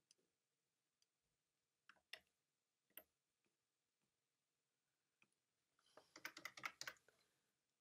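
A few single computer-mouse clicks, then a quick burst of computer-keyboard typing about six seconds in, over near-silent room tone.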